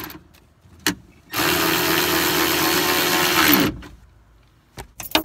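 Power drill/driver running in a screw at a steady speed for about two seconds, after a single click.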